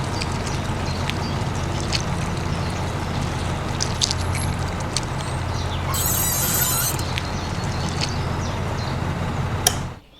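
A small electric motor of a model tractor running steadily with a low hum, with scattered clicks and rattles, cutting off abruptly near the end.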